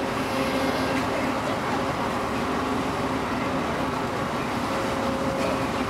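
A heavy engine running steadily: a constant drone with an even, unchanging hum.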